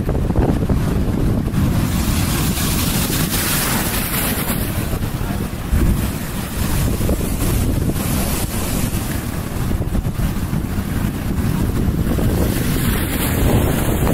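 Wind buffeting the microphone with a steady low rumble, over the wash of sea waves breaking against a rock breakwater and spilling onto the sand.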